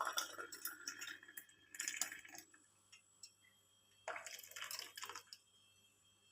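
Boiled herbal decoction being poured through a strainer into a cup: faint trickling and dripping in three short spells.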